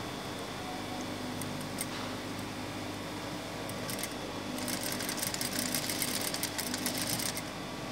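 Industrial lockstitch sewing machine: the motor hums steadily, then the machine stitches rapidly through fabric from about halfway in until shortly before the end. There are a couple of light clicks before the stitching starts.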